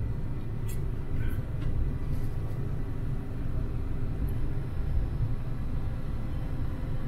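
Parked car's engine idling with the air conditioning running, a steady low rumble heard inside the cabin. A few faint clicks come in the first two seconds.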